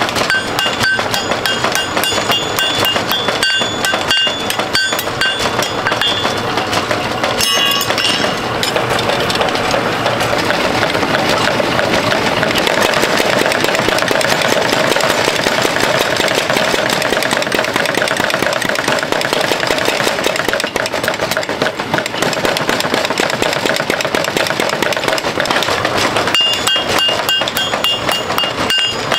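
Hand hammer striking red-hot steel pitchfork tines on an anvil, the anvil ringing with each blow, for the first several seconds and again near the end. In between, while the piece is reheated in the coal forge, there is a steady rushing noise with a constant fine rattle underneath.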